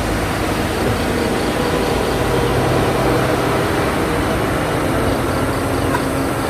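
Large diesel bus engine labouring up a hill, a steady low drone.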